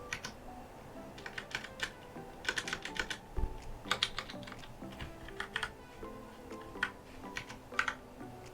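Typing on a Ducky Year of the Rat limited-edition mechanical keyboard: irregular runs of key clacks, in quick bursts with short pauses between them, over background music.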